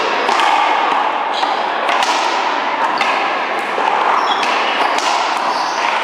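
One-wall racquetball rally: the ball is struck by racquets and rebounds off the wall and floor, giving sharp pops roughly every half second to a second over steady background noise.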